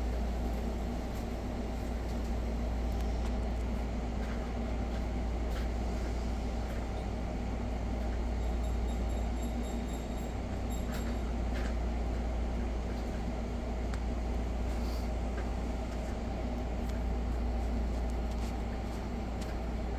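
Steady low mechanical hum or rumble, even in level throughout, with a few faint clicks.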